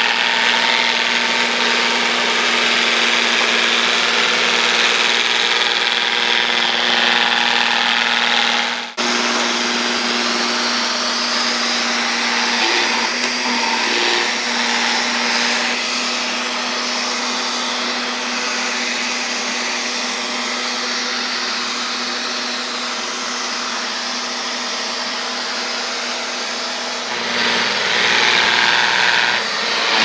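Neato XV-12 robot vacuum running, a steady whir of its suction motor and brush with a constant hum under it. The sound drops out for a moment about nine seconds in and gets louder near the end.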